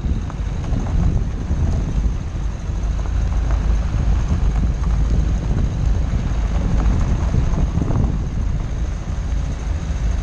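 Dacia Duster rolling over a rocky dirt track: a steady low rumble of tyres and wind on the outside-mounted microphone, with gravel and small stones crunching and crackling under the wheels.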